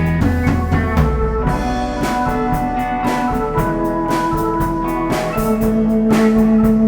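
Live band music with no vocals: a drum kit keeping the beat on hi-hat and snare, under a keyboard bass line, held keyboard notes and guitar.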